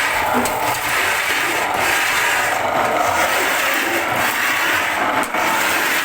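Wood-shaving machine cutting sappanwood into very thin shavings, running continuously as a steady dense scraping noise.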